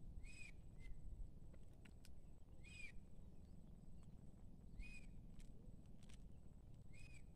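Faint outdoor quiet with a short, high animal call repeated four times, about two seconds apart, over a low background rumble.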